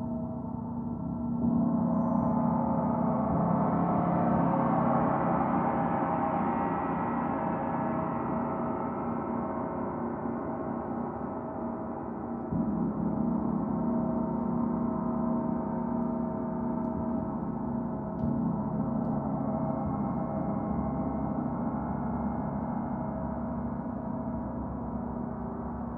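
Several large gongs played together in a gong bath, making a continuous wash of overlapping sustained tones. It swells as fresh strokes come in, with a bright shimmer about a second and a half in and a fuller low swell about halfway through.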